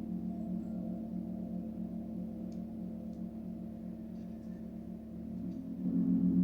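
A gong ringing with a slow, wavering hum that fades a little, then swells louder again near the end.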